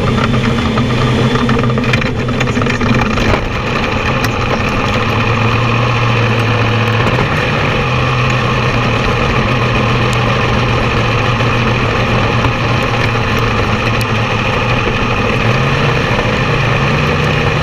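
Sprint car's methanol V8 running at low, steady revs, heard from the car's onboard camera just after a push start, with the revs stepping up a little near the end.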